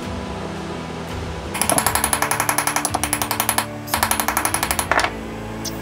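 Ball-peen hammer tapping rapidly on a small square steel tube, about ten light metallic strikes a second, in two runs of one to two seconds with a short break between them.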